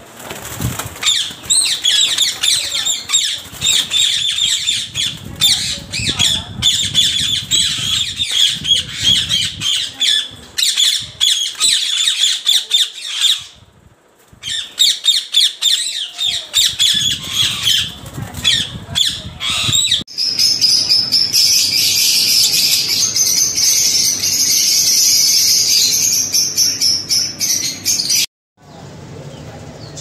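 A flock of caged budgerigars chattering and chirping, with bursts of wing flapping. About two-thirds of the way through it changes to a denser, higher, unbroken chirping chorus that cuts off abruptly near the end.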